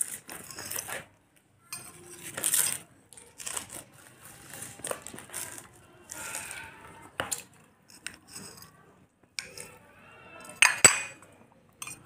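Metal spoon clinking and scraping on a glass plate as it cuts and scoops pieces of banana sponge cake, in scattered short strokes, with the sharpest clink near the end.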